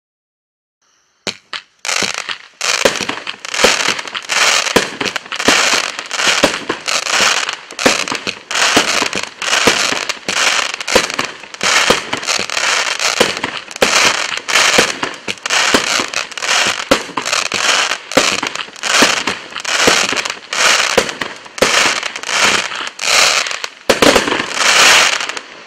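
A Bright Star 'Prime Rain' 25-shot, 500-gram fireworks cake firing. A sharp shot goes off about once a second, starting about a second in, and each is followed by crackling as the shell breaks. The last shots near the end are the loudest.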